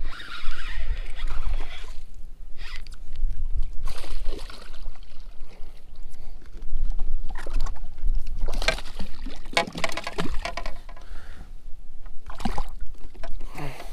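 Water splashing and sloshing against the side of a boat while a small hooked bass is reeled in, in several short rushes, over a steady low rumble of wind on the microphone.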